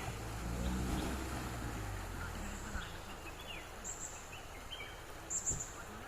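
Outdoor background noise with short, scattered bird chirps and two brief high chirps near the end. Background music fades out in the first couple of seconds.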